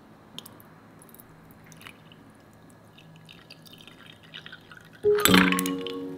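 Iced coffee being poured into a white ceramic cup: faint drips and small ticks, then about five seconds in a sudden loud splash and clink of liquid and ice in the cup.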